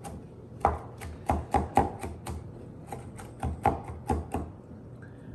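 Kitchen knife rough-chopping peeled shrimp on a wooden cutting board: a quick, uneven run of knocks on the board, about three a second, stopping about four and a half seconds in.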